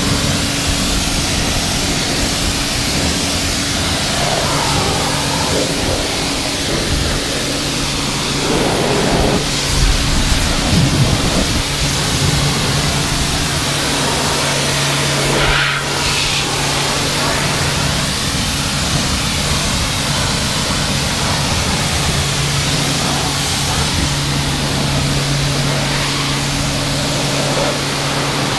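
Kärcher K4 electric pressure washer running with a steady hum, its lance spraying a hissing jet of water onto the car's wheel and bodywork.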